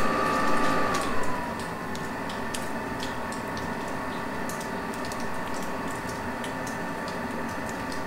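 XVentures portable diesel heater's blower fan running up at start-up: a steady whine that drops a little in pitch about a second and a half in, then holds steady, with light irregular ticking over it. This is the early stage of start-up, before the fuel pump has begun.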